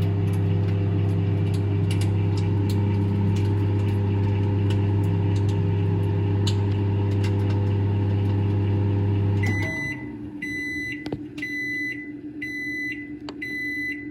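Microwave oven running with a steady low hum. About ten seconds in it shuts off and beeps five times, about once a second, signalling that the cooking time is up.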